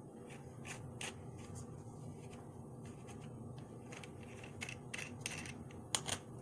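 Scattered light clicks and scrapes of plastic parts being handled as a phone is fitted into a tripod's plastic phone clip, with a brief rubbing scrape about five seconds in and the sharpest clicks near the end.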